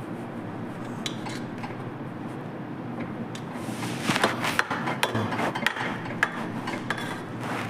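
Cutlery and dishes clinking and scraping in irregular clatters, which get busier about halfway through, over a steady background hum.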